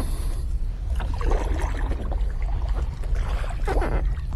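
Kayak paddle strokes swishing and splashing in the water, twice, over a steady low rumble.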